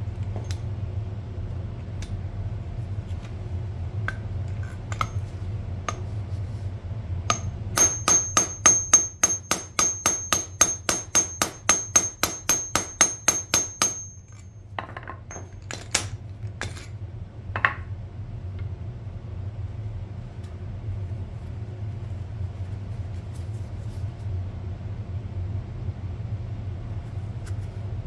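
Quick, even metal-on-metal tapping on a steel shock absorber body, about five light strikes a second with a high ringing tone, lasting about six seconds. A few separate clicks of a tool on metal follow, all over a steady low hum.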